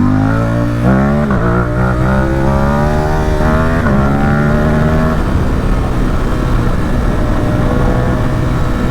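Ducati Supersport 950 S's 937 cc L-twin engine, through an aftermarket Competition Werkes exhaust, revving up through the gears. The pitch climbs and drops sharply at two upshifts in the first four seconds, then the engine note eases off under a steady rush of wind.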